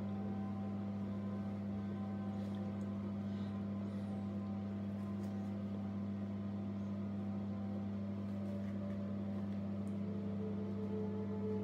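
A steady low hum with faint sustained tones above it, unchanging throughout, with a few faint brief rustles.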